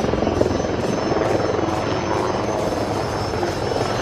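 HAL Light Combat Helicopter Prachand in flight: the steady rotor chop and engine noise of the twin-turboshaft attack helicopter passing close by.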